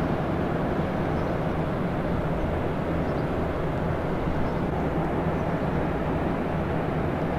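Tugboat's diesel engine running, a steady low drone that does not change.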